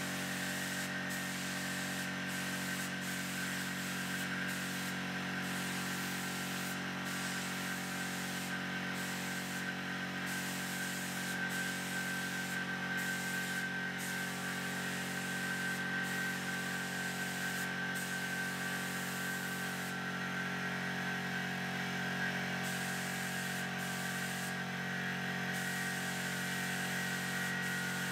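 Gravity-feed air spray gun spraying paint: a steady hiss of air and atomised paint, dipping briefly now and then, over a steady hum.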